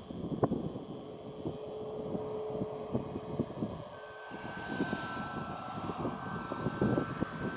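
CFM LEAP-1B jet engines of a taxiing Boeing 737 MAX 8 running at taxi power, with a steady two-toned whine that comes in about five seconds in. Gusty wind rumbles on the microphone throughout.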